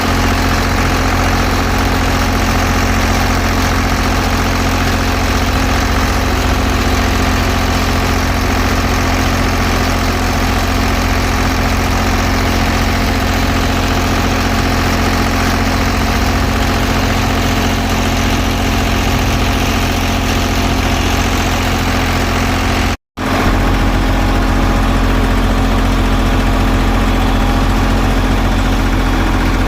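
Engine of heavy paving machinery running steadily at idle, a constant low hum. It cuts out for an instant about three-quarters of the way through and comes back with a deeper, stronger low hum.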